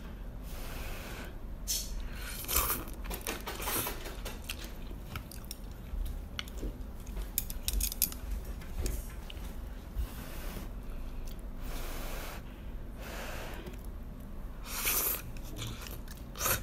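A person eating noodle soup: noodles slurped up in short noisy bursts, with chewing between them.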